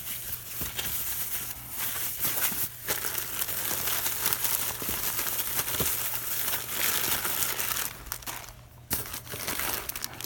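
Plastic parts bag crinkling and rustling as small parts are handled and unwrapped, with a brief lull near the end.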